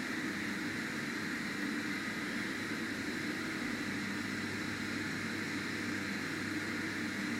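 KONE M-series elevator running, a steady even hum and whir as the car travels down the shaft.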